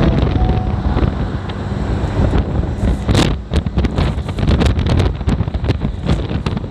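Wind buffeting the microphone on a moving Honda Activa scooter, over steady low road and engine noise. From about three seconds in, a quick run of crackling gusts hits the microphone.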